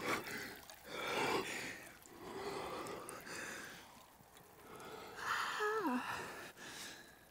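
People breathing hard just after getting into icy pond water: a series of sharp, rushing breaths and gasps, then a short voiced sound that falls in pitch about five and a half seconds in. This is cold-shock breathing in near-freezing water.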